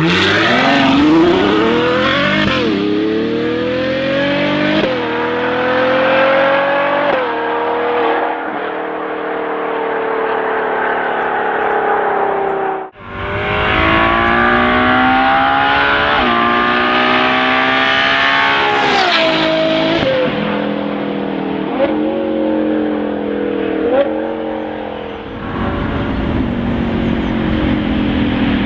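Ferrari GTC4Lusso with a Novitec aftermarket exhaust accelerating hard, its engine note climbing in pitch and dropping back at quick upshifts every second or two. The sound breaks off abruptly about 13 s in, then a second run of acceleration and upshifts follows, easing off near the end.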